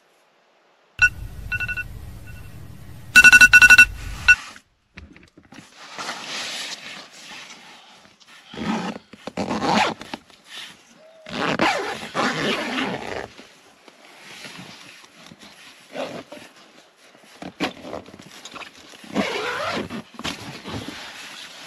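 A high, steady howl lasting about three seconds near the start, taken for wolves howling in the night. After it, the nylon tent fabric rustles and the tent door's zipper is pulled open in bursts.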